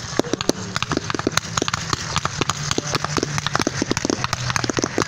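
A fireworks barrage: many shells launching from mortar tubes and bursting overhead in a dense, uneven run of sharp bangs and pops, several each second.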